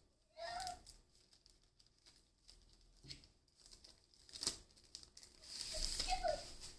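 Clear plastic bag crinkling as it is handled and a paper manual is slid out of it: scattered rustles, a sharp crackle about four and a half seconds in, and louder crinkling near the end.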